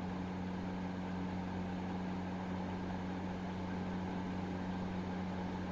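Room tone with a steady low electrical hum, unchanging throughout.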